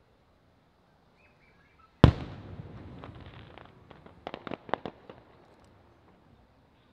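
A firework shell bursts with one loud bang about two seconds in, followed by a rolling echo that fades over a couple of seconds. A quick run of smaller sharp pops follows between about four and five seconds in.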